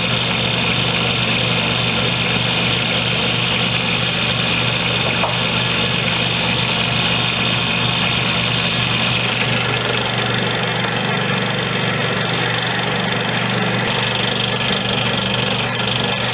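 Powered wire wheel running, brushing rust off vise parts: a steady motor hum under a dense hiss that grows brighter a little past halfway.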